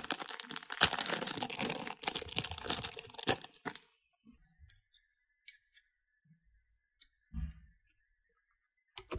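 Handling noise: about four seconds of dense crinkling and clicking, then a few sparse light plastic clicks and one soft thump, as keycaps are popped off a mechanical keyboard.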